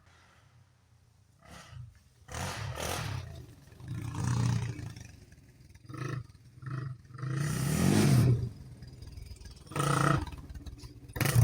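A Honda 400EX ATV's single-cylinder four-stroke engine revved in a series of irregular throttle blips, the longest and loudest rising and falling in pitch a little past the middle.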